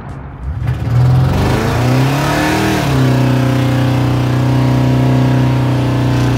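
1967 Chevy C10 pickup's engine accelerating hard. The revs climb for about two seconds, dip slightly about three seconds in, then hold steady and loud.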